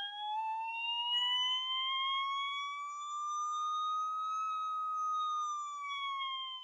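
Electronic tone whose pitch follows the driveshaft speed of a recorded Pro Stock drag run being played back. It rises smoothly like a siren, peaks a little past the middle, then eases down.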